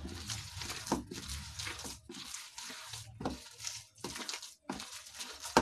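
Wet, coarse-ground urad dal and pea batter squelching as a hand squeezes and mixes it in a bowl, in repeated strokes roughly a second apart.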